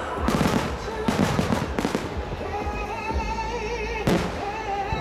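Aerial firework shells bursting: a rapid run of bangs in the first two seconds and another sharp bang near the end. Under them runs music with a held, wavering melody.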